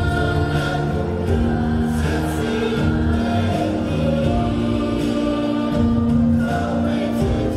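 Mixed choir of young men and women singing in Mandarin, holding long sustained chords that change every second or so.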